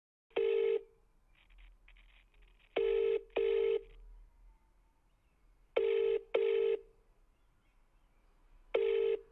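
Telephone ringing tone in the British double-ring pattern: one ring, then a pair of short rings every three seconds, as a caller hears while waiting for the call to be answered.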